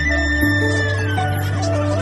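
Background instrumental music: a high melody line of held notes with small steps and a slow glide downward, over steady bass notes.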